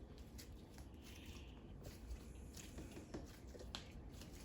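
Faint squishing and soft sticky clicks of fluffy Play-Doh Slime Super Cloud being stretched and handled, a few scattered small clicks over a quiet background.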